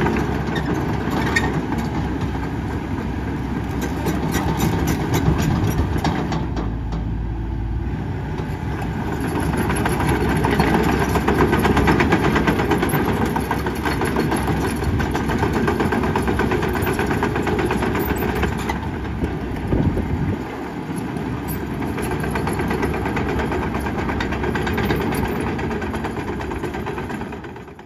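Hitachi ZX135US-6 excavator's diesel engine running under working load as the machine tracks and swings. The sound rises and falls in level, loudest about ten seconds in, with a brief dip about twenty seconds in.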